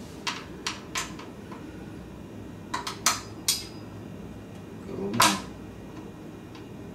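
Scattered sharp metallic clicks and taps of barstool hardware, as bolts are fitted and turned into the steel mounting plate under the seat; a few light clicks, then a louder one about five seconds in.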